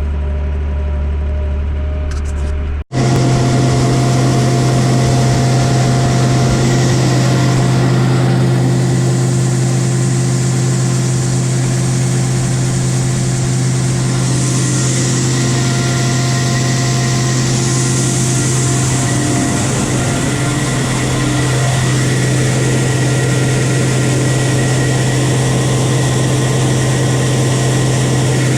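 A low, steady machine hum, then a cut about three seconds in to a louder farm engine running steadily at a constant speed, one held pitch with a hiss over it.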